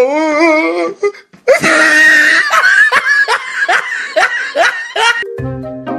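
High-pitched laughter: a wavering laugh at first, then after a short break a quick run of ha-ha bursts. A simple tune of held notes starts near the end.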